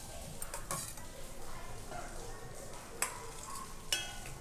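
A steel spoon scooping raw banana slices out of turmeric-salt water into a steel colander. It makes a few light clinks of metal on steel, and one near the end rings briefly.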